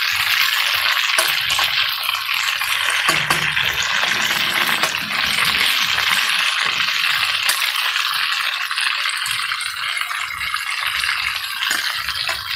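Whole bluefish frying in hot oil: a steady, dense crackling sizzle, with small clicks of a metal spatula in the pot as oil is basted over the fish.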